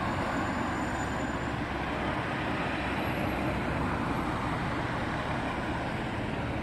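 Road traffic: cars and a city bus driving along a street, a steady, even rumble of engines and tyres.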